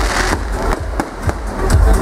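Fireworks display set to electronic dance music: a strong beat with repeated sharp firework bangs and crackle.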